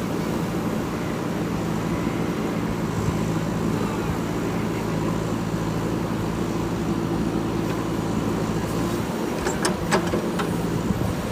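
Diesel engine of a JCB 3DX backhoe loader running steadily, with a few sharp clicks near the end.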